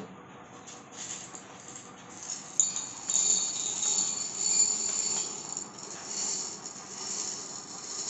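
Dry chana dal (split Bengal gram) scooped by hand and poured into a stainless-steel tumbler. The hard lentils clatter on the metal as a steady rustling hiss, louder from about two and a half seconds in.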